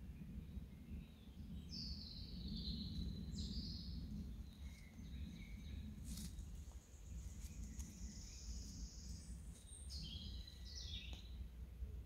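Songbirds singing in a spring forest: short phrases of falling notes about two seconds in and again near the end, with a long, thin high note in between. Under it runs a steady low rumble, and there is a single sharp click midway.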